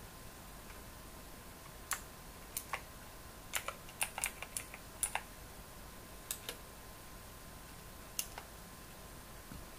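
Computer keyboard keystrokes typing a search word: sharp separate key clicks, a couple at first, then a quicker run of about a dozen, then a few more, stopping about three quarters of the way through.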